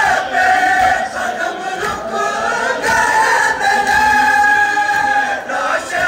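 A group of men chanting a noha, a Shia lament for Muharram, in unison, holding long drawn-out notes.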